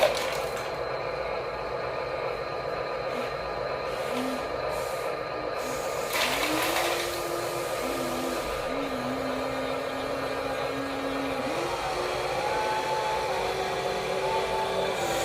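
Whine of the small electric motors and gearboxes of toy RC construction machines, stepping up and down in pitch as they start, stop and change speed. A brief noisy burst comes about six seconds in.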